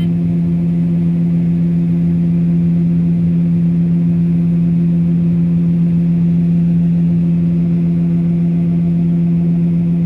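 John Deere 9560 STS combine running steadily while harvesting corn, heard inside the cab: an even drone with a strong low hum and a few steadier tones above it.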